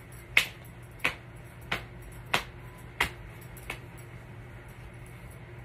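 Six sharp, evenly spaced clicks about two-thirds of a second apart, stopping about four seconds in.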